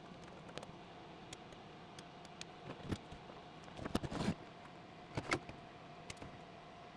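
Irregular clicks and knocks of hard objects being handled, loudest in a cluster about four seconds in and again just after five seconds, over a faint steady hum.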